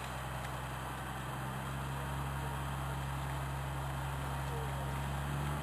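Scania P114 dump truck's diesel engine running steadily, a constant low hum, while the hydraulic hoist raises the tipper body.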